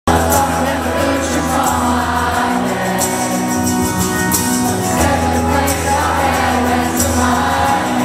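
Rock band playing live, with guitars, sustained bass notes and drums with cymbal crashes, a man singing lead and a large crowd singing along.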